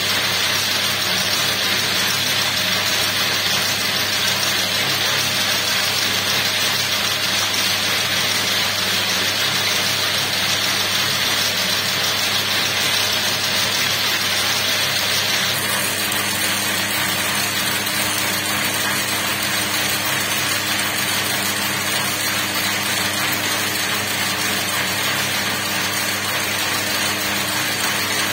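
Bobbin braiding machine running steadily, its thread carriers whirling around the deck as it braids cord. About halfway through, the higher hiss drops and a steady low hum comes up.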